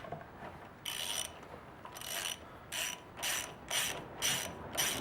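Ratchet wrench with a 14 mm socket clicking through a series of short back-and-forth strokes, about seven, roughly two a second, as a brake caliper bolt is backed out.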